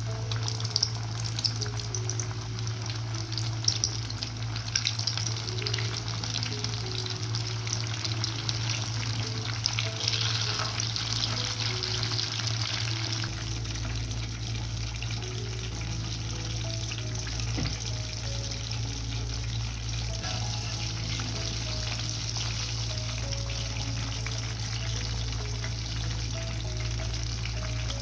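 Battered chicken pieces deep-frying in hot oil: a dense crackling sizzle, busier in the first half and steadier later. Quiet background music plays underneath.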